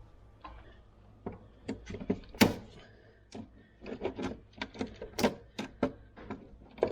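Hand tools and small fasteners clicking and tapping on a skid steer during repair work: a run of irregular light clicks, with louder knocks about two and a half seconds in and again a little after five seconds.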